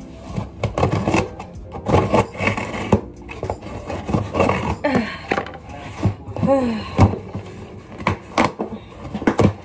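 Scissors scraping and cutting along the packing tape of a cardboard box, with repeated knocks and rustles as the cardboard is handled and pulled open.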